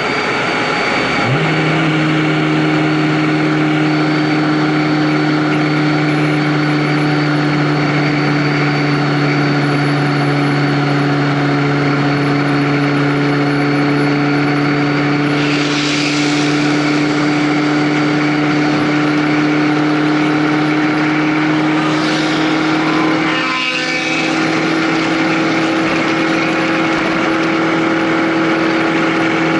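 A vehicle engine running on the move. About a second in its pitch steps up, then it holds a steady drone that creeps slightly higher. A short rushing noise passes about two-thirds of the way through.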